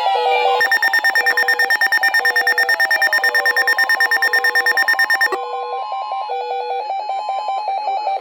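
Layered electronic alarm tones of a weather-radio warning alarm test: a rapid beeping of about ten pulses a second over a steady tone near 1 kHz and a repeating lower tone pattern. The rapid beeping cuts off suddenly about five seconds in, and the lower repeating tones carry on.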